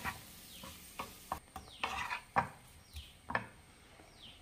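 Wooden spatula stirring peeled boiled quail eggs in spiced oil in a small pan: a series of scrapes and light knocks against the pan, about every half second, stopping shortly before the end.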